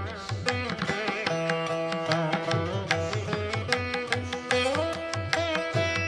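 Instrumental background music in an Indian classical style: a string melody whose notes bend in pitch, over a steady drum beat.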